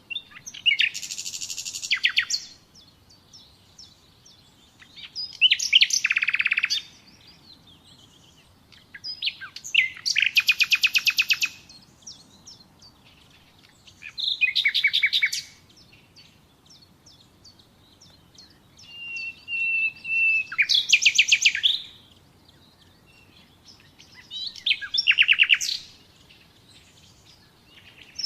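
Nightingale singing: six phrases of about two seconds each with pauses between. Each phrase is a run of rapid repeated notes and trills, and one, about two-thirds through, opens with a long steady whistle.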